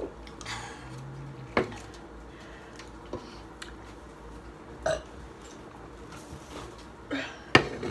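A person drinking from a tall aluminium can, with a burp and a few sharp knocks, the loudest about a second and a half in.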